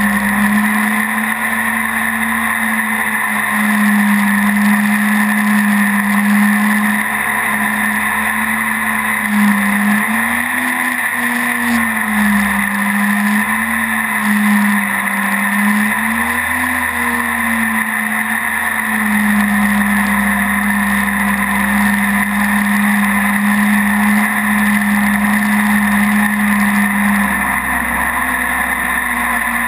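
Mini jet boat's engine running steadily under way. Its pitch rises and dips a few times in the middle.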